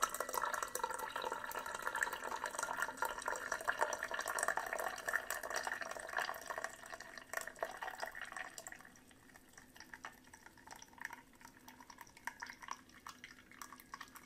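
Brewed black tea pouring from the Ninja Hot and Cold Brewed System's brew basket into a ceramic mug as a splashing trickle. About eight or nine seconds in the trickle thins to scattered drips as the brew cycle ends.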